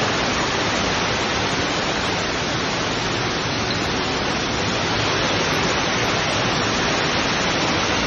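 Heavy rain pouring down under a metal-roofed shelter, a loud steady hiss with no letup.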